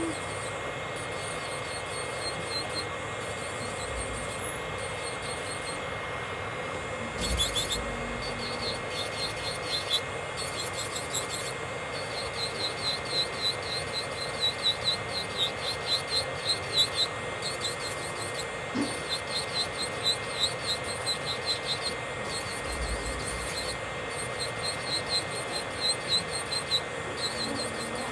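Electric nail drill (e-file) running at a steady whine, its bit rasping over the nail in quick repeated strokes, several a second, as the gel is filed off.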